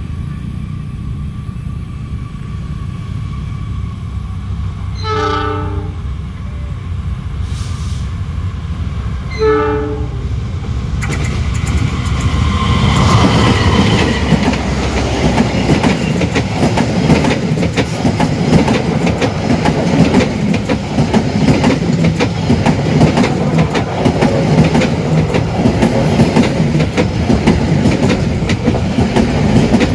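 Diesel-electric locomotive rumbling as it approaches, sounding two short horn blasts about five and nine seconds in. From about twelve seconds in the train passes close by, loud, its wheels clattering steadily over the rail joints as the carriages roll past.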